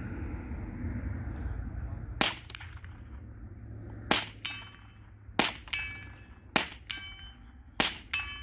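Five shots from a Mossberg 715T semi-automatic .22 LR rifle, the first alone and the other four about a second apart. After each of the last four a short metallic ring follows a moment later.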